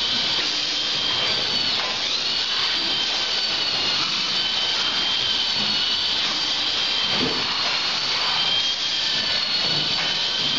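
Automatic packing machine running: a steady mechanical whir with two high, steady whines on top that dip slightly in pitch now and then.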